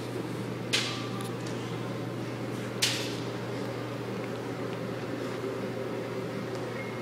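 An elephant's trunk strikes a hanging bag of alfalfa twice, about two seconds apart, giving two sharp, crackly slaps. A steady low hum runs underneath.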